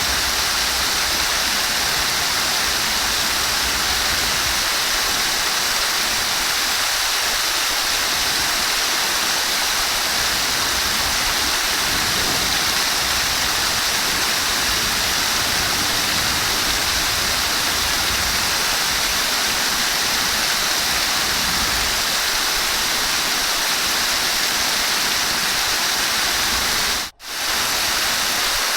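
Flowing water rushing steadily, an even hiss with no distinct splashes. It drops out for an instant near the end before resuming.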